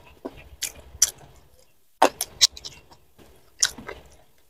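Close-miked chewing of jengkol balado (jengkol beans in spicy chili sauce), with a handful of sharp crunches and mouth clicks at irregular intervals.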